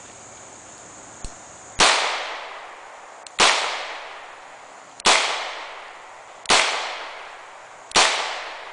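Five shots from a Charter Arms Pit Bull double-action revolver in .40 S&W, fired with Buffalo Bore +P 180-grain hollow-point loads, spaced about a second and a half apart. Each shot is a sharp bang that rings off for about a second.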